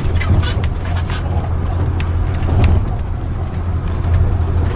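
Motorhome engine pulling hard up a steep climb in first gear, a steady low drone heard from the cab, with scattered clicks and rattles as it crosses a potholed road.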